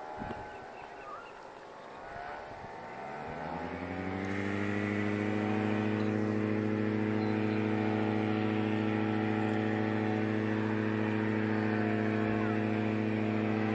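Paramotor engine and propeller running. Over the first four seconds its pitch slides down as it grows louder, then it settles into a steady drone.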